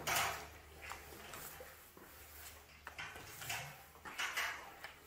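Paint roller on an extension pole spreading wet epoxy top coat across a flake-coated concrete floor: a series of irregular swishing strokes, the strongest at the start.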